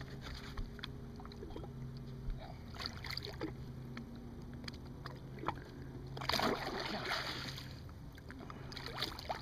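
A large grass carp splashing and thrashing in the water at the side of a boat as it is grabbed by hand, with a burst of splashing for a second or two about six seconds in. A steady low hum runs underneath.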